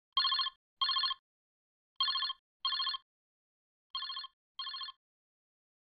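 Mobile phone ringing with a classic double-ring telephone ringtone: three pairs of short trilled rings, about two seconds apart. The third pair is quieter.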